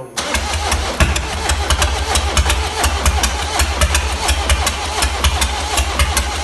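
1.6 HDi diesel engine catching and running, with a regular sharp ticking knock all through. The mechanic takes the noise for a sign of a jumped timing chain, faulty lifters or bent valves.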